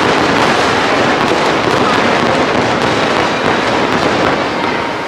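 Fireworks display going off in a dense, continuous crackle, loud and steady throughout.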